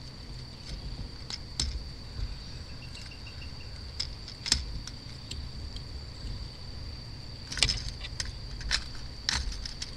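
An insect calling steadily at a high pitch, with scattered light clicks and rattles, most of them near the end.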